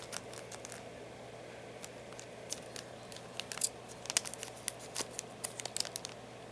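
Crisp, irregular crinkling and snapping of a foil Yu-Gi-Oh! booster pack being torn open and its cards handled, busiest in the second half, over a steady low hum.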